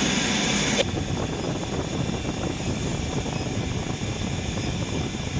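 A loud steady hiss with thin high whining tones stops abruptly with a click just under a second in, leaving a steady low machinery rumble.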